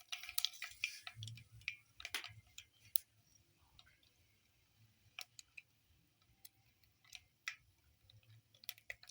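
Mustard seeds popping in hot cooking oil in a pan: scattered, irregular sharp clicks, more of them in the first few seconds and again near the end.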